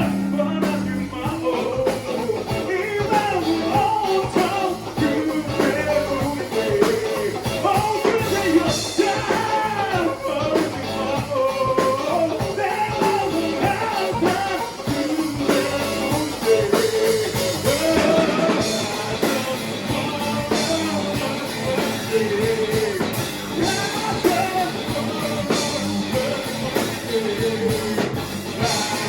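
Rock band playing a song, with a singer's voice carried over the band.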